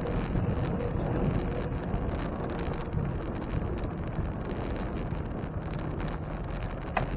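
Wind buffeting the microphone of a camera riding on a moving bicycle: a steady low rush of noise.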